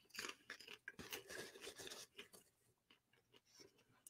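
Faint crunching and chewing of popcorn, a run of small irregular crunches in the first two seconds or so.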